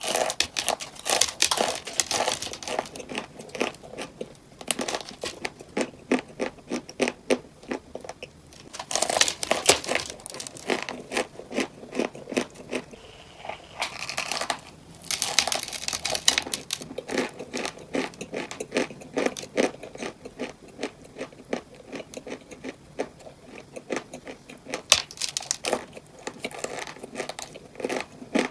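Close-miked crinkling and crunching of crunchy cupcakes and their paper wrappers, a dense run of sharp crackles with two longer bursts of rustling, about a third of the way in and again about halfway.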